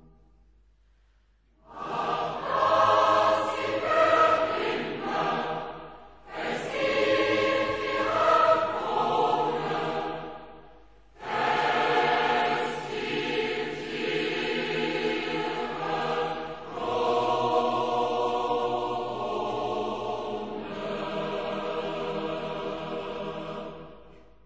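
Choir singing a hymn in several phrases after a short pause, with brief breaks between phrases, ending on long held chords that fade out near the end.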